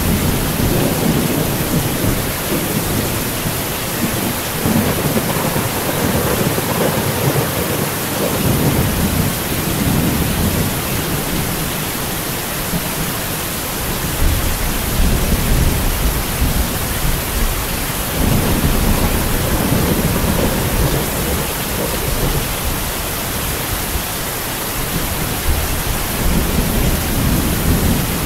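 Heavy rain falling steadily, with low rolls of thunder that swell and fade several times.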